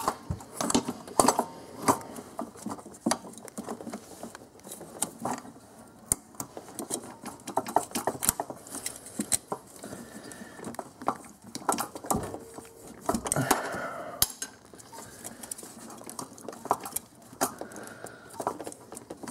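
Irregular metallic clinks, clicks and knocks of hand tools and the throttle body as it is unbolted and worked loose from the intake plenum of a Nissan VQ35DE V6.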